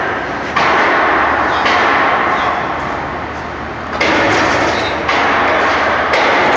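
Loud, steady rushing noise of construction-site machinery in an underground shaft, jumping abruptly louder and softer several times.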